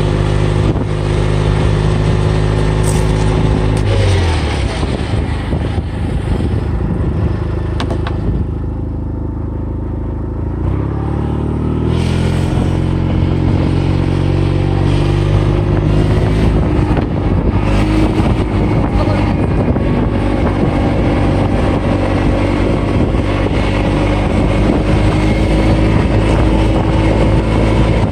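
Kubota utility vehicle's engine running with road noise from the gravel road. About four seconds in the engine note drops as it slows, and around twelve seconds it rises again and holds steady.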